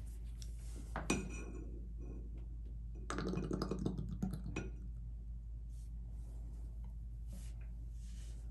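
Small hard parts clinking as a shower valve's check valve is handled: one sharp clink with a brief ring about a second in, then a rapid rattle of clicks lasting about a second and a half near the middle.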